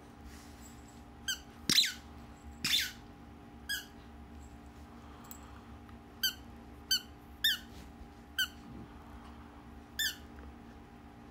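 Squeaky toy ball chewed by a dog, giving about nine short, sharp squeaks at irregular intervals, the loudest near two seconds in.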